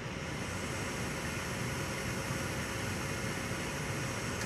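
Gas furnace's inducer (draft) fan motor running steadily, an even mechanical noise with a faint thin tone. This is during a call for heat with the hot surface igniter glowing, and no burner ignition is heard: the gas fails to light off because the igniter is not sitting directly in the gas flow.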